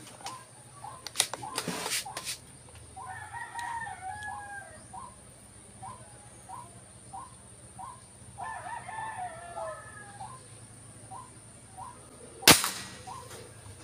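Birds calling: a short call repeating about every half second, with two longer calls a few seconds apart, and a few clicks about a second in. Near the end comes a single sharp shot from a PCP air rifle.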